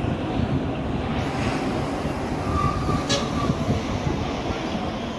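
Steady rumble of a moving vehicle heard from on board, with a few faint short squeals and a brief click about three seconds in.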